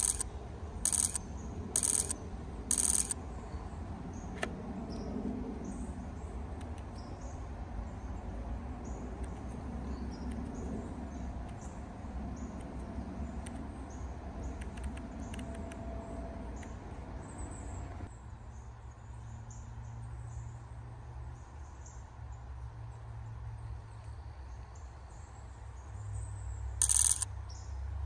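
Nikon Z9 shutter sound in short bursts of continuous shooting: four bursts about a second apart at the start and two more near the end. Faint high ticks are scattered in between.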